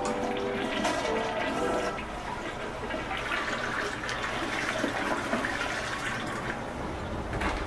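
Toilet flushing, a steady rush of water.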